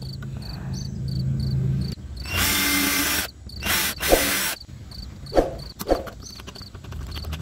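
Cordless 12 V drill running in short bursts, boring a bolt hole through a wooden motor mount. The first burst, about a second long, is the loudest.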